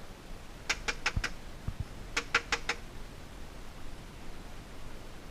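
Airsoft gun firing two short, rapid bursts of about four shots each, a second and a half apart.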